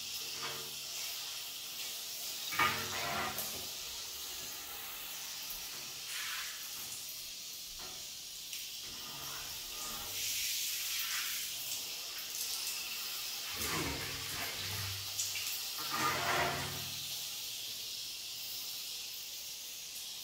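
Handheld shower head spraying a steady hiss of water against the glass and tile walls of a shower, rinsing them, with a few brief louder splashes.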